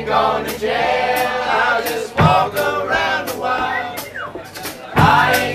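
Live rock band in a small club with the crowd singing along, many voices together over a steady beat of sharp hits. It drops back briefly near the end, then comes in loud again.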